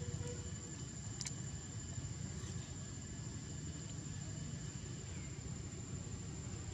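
Outdoor background with no animal calls: a steady low rumble under a thin, steady high-pitched insect drone, with a faint click about a second in.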